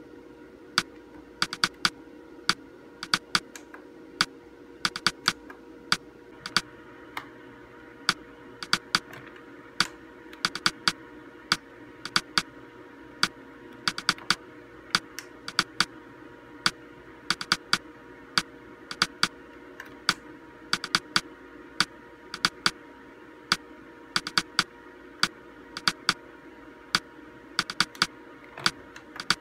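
Plastic front-panel buttons on a computer monitor clicking as they are pressed, in quick runs of several clicks with short pauses. Each click steps through the monitor's on-screen menu settings, here lowering the red colour level. A faint steady hum sits underneath.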